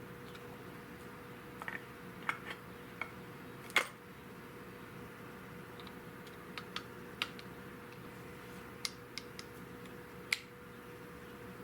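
Irregular light clicks and taps, a dozen or so, of small parts being handled, with the sharpest about four seconds in and another near the end, over a faint steady hum.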